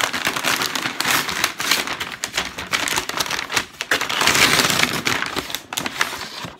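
A brown paper mailer bag being pulled open and crumpled by hand: a dense, crackling rustle of stiff paper, loudest about four seconds in.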